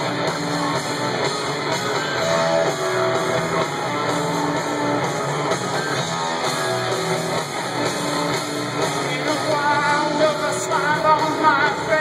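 Live rock band playing at concert volume through a large PA, recorded from among the audience: electric guitar chords and sustained notes over a steady band.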